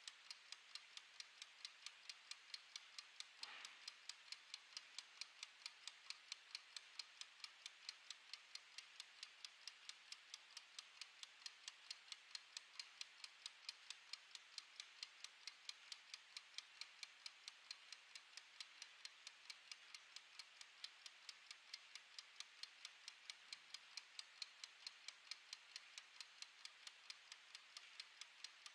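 Mechanical wind-up kitchen timer ticking: faint, light, rapid and perfectly even clockwork ticks. A brief soft noise comes about three and a half seconds in.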